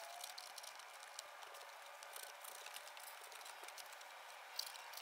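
Faint scratching and small clicks of a knife cutting into a corrugated cardboard box, with one sharper click near the end.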